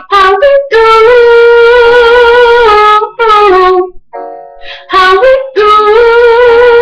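A woman singing loudly, holding long wordless notes, with a short break a little under four seconds in.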